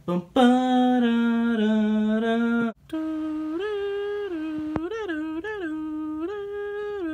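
A voice humming a tune in long held notes: one low note held for about two seconds, then, after a short break, a higher phrase whose notes step up and down.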